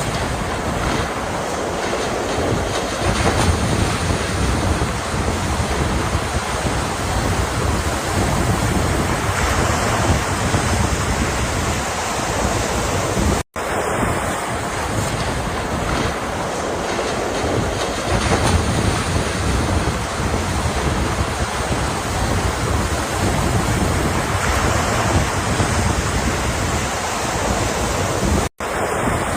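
Ocean surf, waves breaking and washing in a steady rumbling hiss with wind on the microphone. The sound drops out for an instant twice, about halfway through and near the end.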